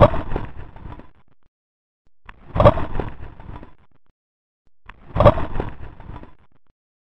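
Philae lander's touchdown on a comet, recorded as vibration through the sensors in its landing feet and made audible: a short, sharp thud that dies away over about a second. It plays three times on a loop, about two and a half seconds apart, each preceded by a faint click.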